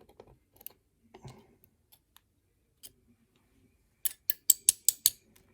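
Small metal lock parts clicking as the pins are worked out of a lock cylinder: faint scattered ticks, then a quick run of about six sharp clicks near the end.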